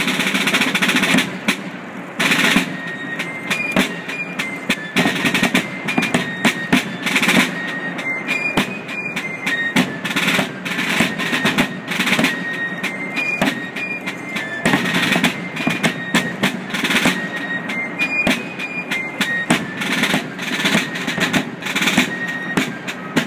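Colonial fife and drum corps playing a march: fifes carry a high melody of held notes stepping up and down, over steady drum beats and rolls.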